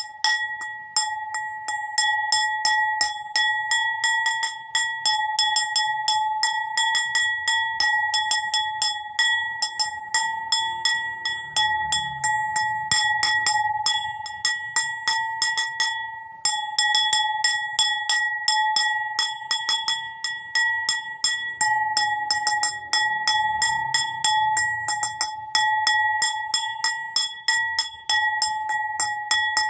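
A bowl struck over and over in quick succession, a few sharp taps a second, each leaving a clear bell-like ring. The strikes stop briefly about halfway through, then go on.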